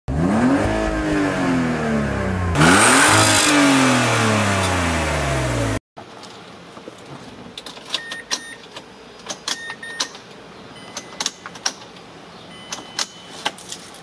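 A car engine revved twice, its pitch rising and falling, then cut off abruptly. This is followed by quiet clicks and short electronic beeps from a Mazda CX-7's ignition as the key is turned, with no engine cranking: a no-crank, no-start condition.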